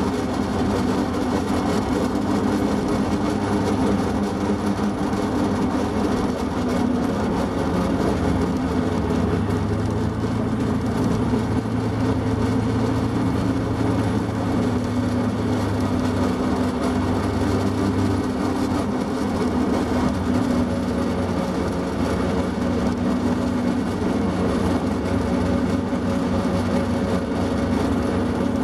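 Plymouth switcher locomotive's engine running at a steady, low drone as the train moves slowly along the track.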